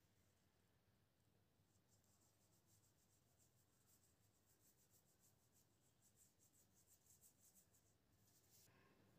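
Near silence, with the faint, quick, repeated scratching strokes of a small paintbrush on paper.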